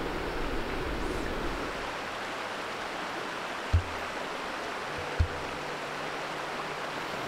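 A shallow river running over a stony bed, a steady rush of water. Two dull low thumps sound about a second and a half apart midway through.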